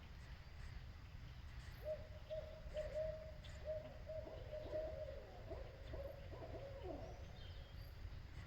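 An owl hooting: a run of steady hoots that turns into wavering notes with a falling note at the end.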